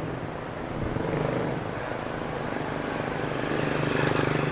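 Street traffic: a motor vehicle's engine drones steadily close by, swelling louder towards the end as it comes nearer.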